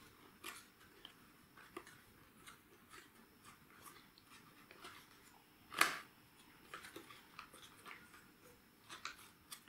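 Faint, sparse rustles and crinkles of folded paper as the petals of an origami paper tulip are curled back by hand, with one louder crinkle about six seconds in.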